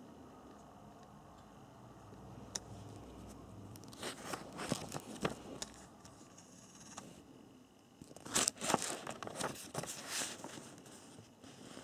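Paper pages of a printed instruction booklet being handled and turned, crisp rustling in two bouts, the louder one near the end.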